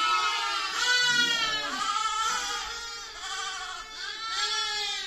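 Several lambs bleating, their wavering calls overlapping one after another with hardly a pause.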